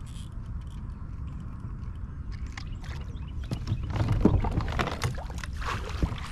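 Water splashing and knocking around a fishing kayak as a hooked largemouth bass is fought to the boat and grabbed at the surface. The splashes and knocks start about two and a half seconds in and are loudest in the second half, over a steady low rumble.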